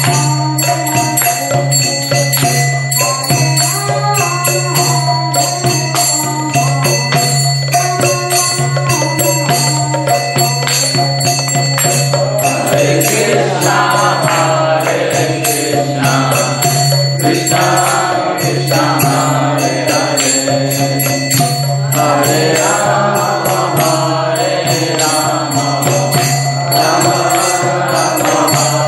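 Devotional kirtan song: a woman's voice sings a Sanskrit-style chant into a microphone over a steady low drone, with small jingling percussion keeping time. The singing grows fuller, as if more voices join, about twelve seconds in.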